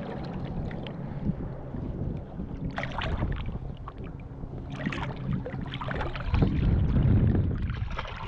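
Water sloshing and wind on the microphone, with two short splashes about three and five seconds in.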